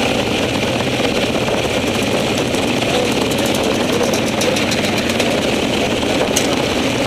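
Off-road motorcycle engine running steadily at low revs close to the microphone, with a sharp click about six seconds in.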